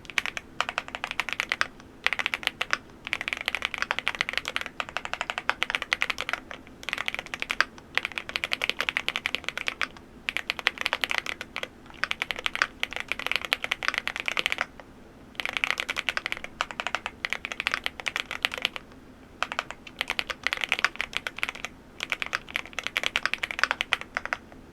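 Typing on an MCHOSE GX87, a full-aluminium tenkeyless mechanical keyboard: fast runs of keystrokes in bursts of a second or few, with short pauses between them.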